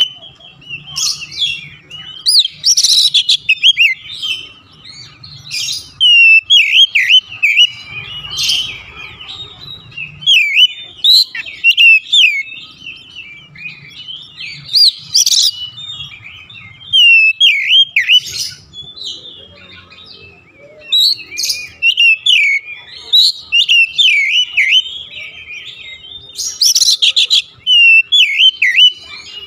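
Oriental magpie-robin singing continuously and loudly: rapid, varied whistled phrases sweeping up and down, broken every few seconds by harsh, scratchy notes.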